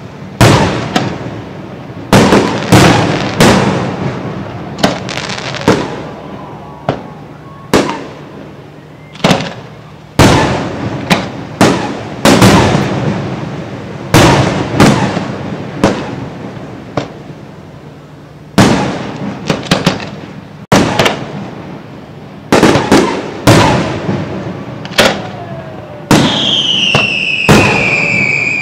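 Aerial fireworks display: a steady run of sharp booms, roughly one a second and sometimes in quick clusters, each trailing off in a rolling echo. A high whistle glides downward near the end.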